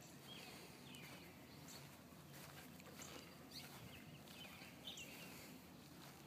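Near silence: a faint open-air background with a handful of short, faint bird chirps scattered through it.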